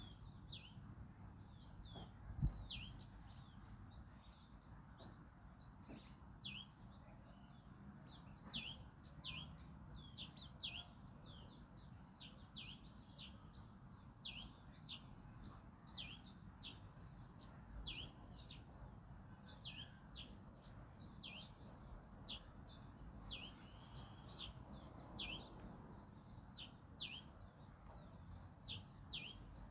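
Small birds chirping busily, many short downward-sliding chirps several times a second, over a faint low wind rumble. A single thump about two and a half seconds in.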